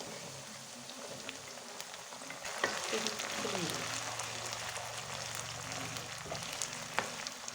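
Green chillies sizzling and crackling as they fry in hot sesame oil with ginger, garlic and mustard seeds, stirred in the pan. The sizzle grows louder about two and a half seconds in.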